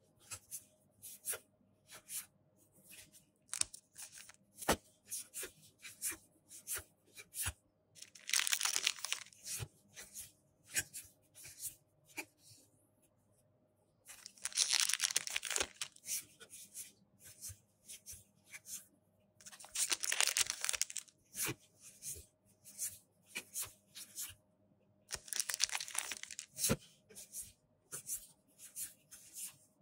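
One Piece Card Game booster-pack wrappers tearing open and crinkling, four times in a couple of seconds each, between many quick clicks and snaps of trading cards being flicked through in the hand.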